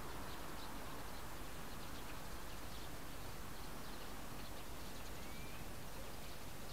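Steady outdoor background hiss with faint, short high chirps of distant birds about once a second, and a brief rising whistle about five seconds in.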